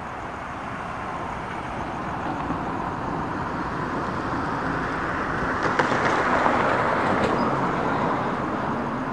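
A road vehicle driving past: a rushing noise that swells to a peak about six seconds in and then fades, with a few sharp clicks near the loudest point.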